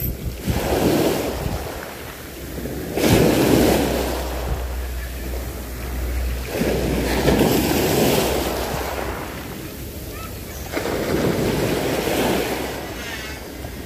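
Small waves breaking and washing up the beach, a surge every three to four seconds, with wind rumbling on the microphone.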